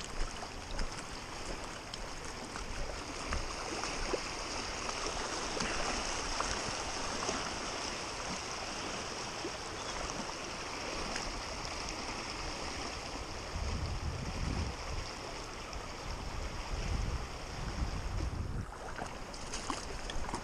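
Creek water rushing over shallow shale ledges and riffles: a steady, even wash. In the second half, low irregular buffeting on the microphone joins it.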